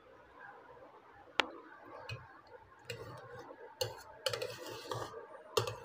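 Clicks and scrapes of cake-decorating utensils against a metal turntable and a steel bowl of whipped cream: one sharp click about a second and a half in, then a string of taps and scraping as cream is handled.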